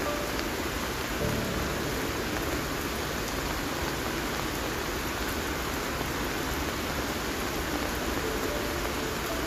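Heavy monsoon rain falling steadily on dense foliage: an even, unbroken hiss. Soft background music notes sound faintly over it near the start and again near the end.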